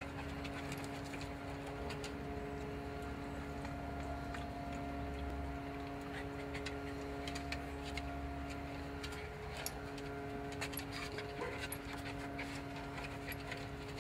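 Cairn terrier panting, with scattered light clicks, over a steady machine hum.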